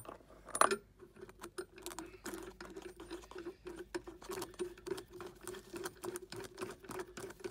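Metal screw being turned in by fingers and handled against a metal disc set in a van's floor lashing point: a string of light metal clicks and ticks, with a sharper knock at the start and another about half a second in. A steady pulsing hum runs underneath from about half a second in.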